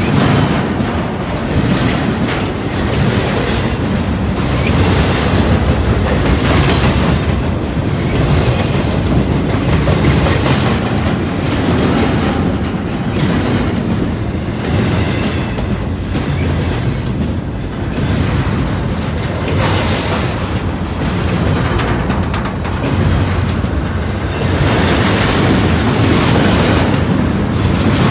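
Freight train of double-stack intermodal well cars rolling past close by: a loud, steady rumble of steel wheels on the rails with repeated clacking.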